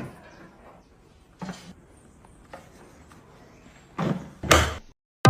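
A few knocks and clunks over faint background noise, the loudest two close together near the end.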